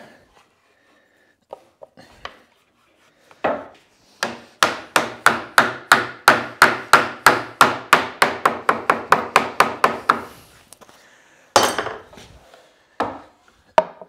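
A mallet driving a wooden Sapele pin through a wooden leg vise: a few light taps, then a fast, even run of blows at about four a second, then three separate heavier blows near the end. The pin is a stiff, tight fit.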